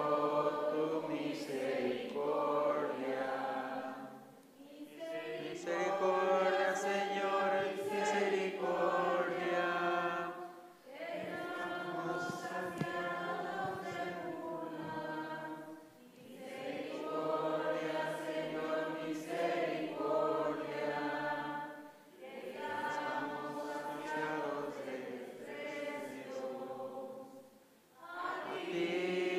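A congregation singing a slow hymn together. The long sung phrases are separated by short breaks about every five to six seconds.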